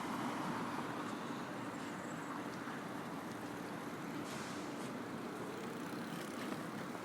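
Steady city street ambience: a continuous hum of traffic with a few faint clicks and knocks.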